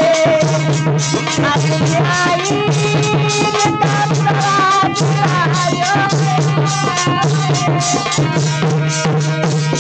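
Indian devotional folk song (jas) music: a gliding melody line over a steady, quick percussion beat.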